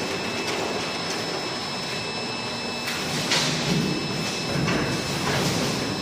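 Mechanical bin lifter hoisting and tipping a stainless-steel bin of medical waste over a shredder hopper: a steady machine noise with a faint high whine, and several louder rattling surges in the second half as the bin swings over.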